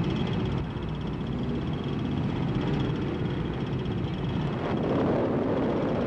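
A column of two-stroke motor scooters riding together, their engines making a steady mixed buzz that grows a little louder about five seconds in as they come closer.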